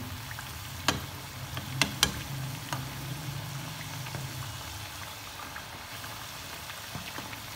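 Samosas deep-frying in hot oil over a medium flame, a steady sizzle, while spoonfuls of the oil are ladled over them. A few sharp clicks come in the first three seconds.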